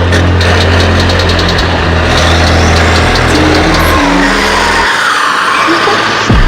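Car engine running loud, with a steady low drone that drops away about four seconds in while a higher pitch rises and falls, as when the engine is revved.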